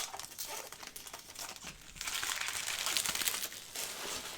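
Trading-card pack wrapper crinkling as it is handled and torn open, a crackly rustle that grows louder about halfway through.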